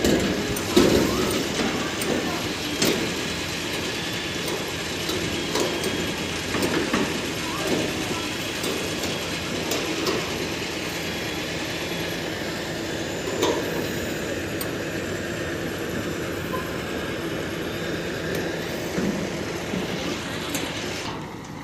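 Heavy machinery running steadily, with scattered metal clanks and knocks from curved steel roof panels being handled.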